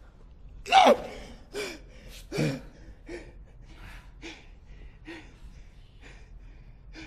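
A man's heavy, gasping breaths, each with a short falling voiced edge, sound of someone winded and hurt after a fight. The first three are the loudest, a little under a second apart; fainter panting follows about every half-second.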